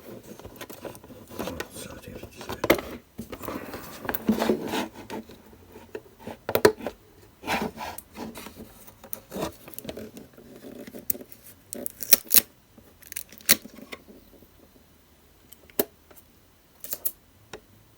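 Hands handling a boxed model truck and its packaging: rustling, scraping, and scattered sharp clicks and taps as the model is taken off its display base.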